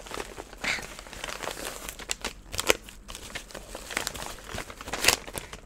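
White packaging crinkling as hands open a wrapped parcel and reach inside, in irregular sharp crackles.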